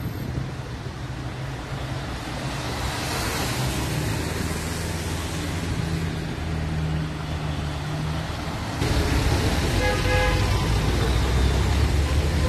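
City road traffic: cars passing on a wet road, one swishing by close a few seconds in. After a cut about nine seconds in, the deeper rumble of cars idling close by comes in, with short car-horn toots near the end.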